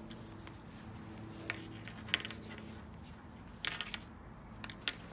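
Dog harness being unbuckled and slid off: a few short plastic-buckle clicks and clinks of its hardware, heard one at a time over a faint steady hum.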